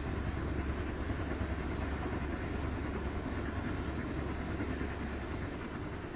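Helicopter running: a steady low rumble with a hiss over it, easing slightly near the end.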